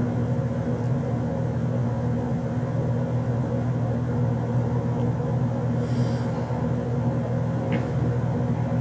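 Steady low electrical or machine hum, unbroken and unchanging, with no speech.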